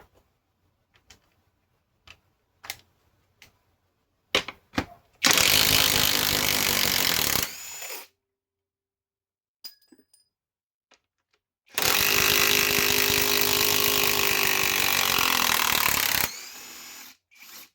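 Cordless mid-torque impact wrench hammering in two runs, about two seconds and then four and a half seconds long, backing out fasteners. A few sharp clicks come before the first run.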